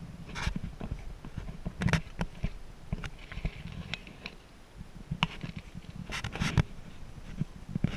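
Handling noise from a camera carried low through grass: irregular scrapes, knocks and rustles against the microphone over a low rumble, with a cluster of louder scrapes around six seconds in.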